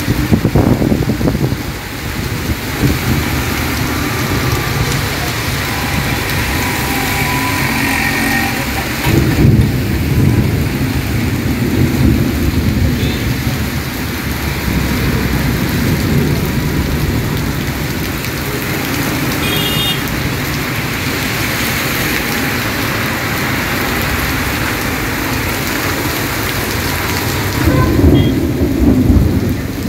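Heavy rain pouring steadily, with thunder rumbling, loudest about nine seconds in and again near the end.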